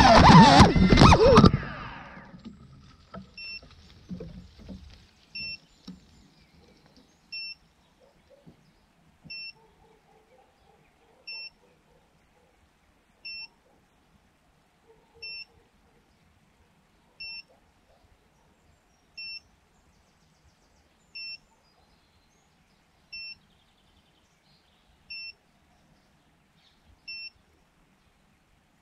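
FPV quadcopter's motors and propellers whining at high speed, cut short by a clatter of branches as it crashes into a tree and tumbles. The downed drone's beeper then sounds a short beep about every two seconds.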